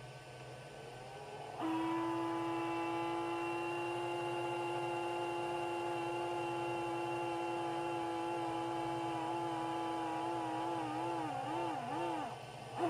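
Eibos Tetras X vent whistling as the unit rises: a steady pitched tone comes in about a second and a half in and holds. Near the end it wavers up and down in pitch, breaks off briefly and starts again, over a low steady hum.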